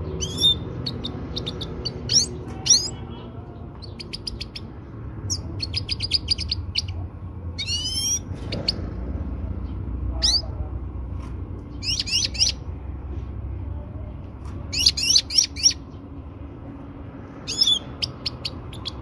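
European goldfinch calling in short groups of quick, high twittering chirps with brief pauses between, over a faint low hum. It is offered as a female goldfinch's call, played to bring a male into breeding condition.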